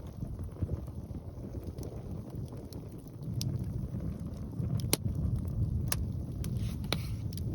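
Wind buffeting the microphone in a low rumble, with a wood fire giving a few sharp crackling pops now and then.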